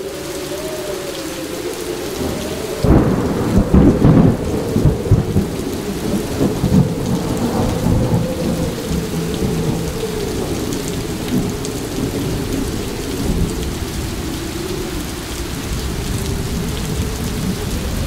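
Thunderstorm: heavy steady rain, with thunder rumbling loudest about three to five seconds in and then trailing off in a long, uneven rumble.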